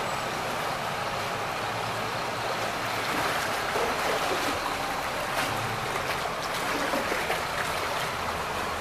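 Steady rush and slosh of floodwater as a city bus drives through it, with the bus's engine running low underneath.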